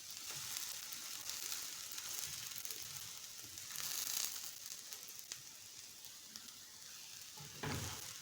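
Egg omelette frying in hot oil in a pan, a steady sizzle that swells louder about four seconds in; its second side is cooking after being flipped.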